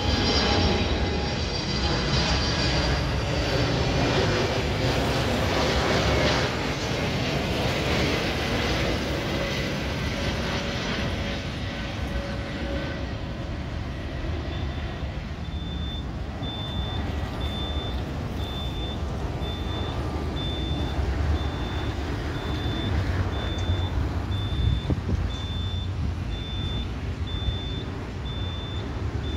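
Airbus A321neo's jet engines on approach, passing overhead with a whining fan tone and then fading as the airliner moves away. From about halfway through, a vehicle's reversing beeper beeps steadily, about once a second.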